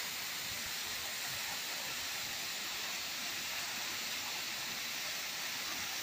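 Waterfall pouring down a rock face into a pool: a steady, unbroken rushing hiss of falling water.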